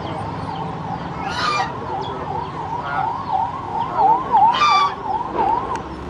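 Domestic geese honking, two loud harsh honks about a second and a half in and near the end, over a siren wailing in a fast up-and-down yelp about three times a second.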